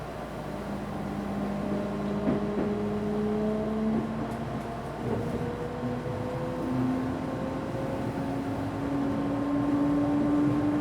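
Early Mitsubishi GTO-VVVF inverter and traction motors of an Odakyu 1000-series train whining as the train accelerates, over the running noise of the car. Several tones rise slowly in pitch; one breaks off about four seconds in and comes back lower a second later, then climbs again.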